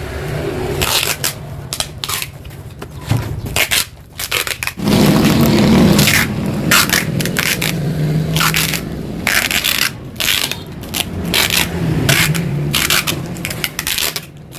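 Packing material being handled as a motorcycle exhaust is wrapped: irregular crinkling and scraping in quick bursts.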